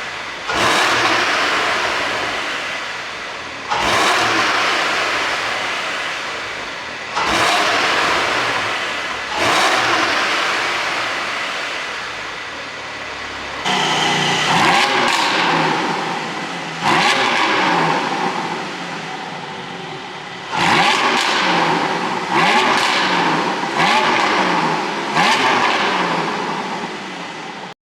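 Porsche 718 Boxster GTS 4.0's naturally aspirated 4.0-litre flat-six revved from the exhaust in sharp throttle blips, about one every three seconds at first and then in quicker runs from about halfway. After each blip the revs fall away. The car runs an ECU tune made for pops on the overrun.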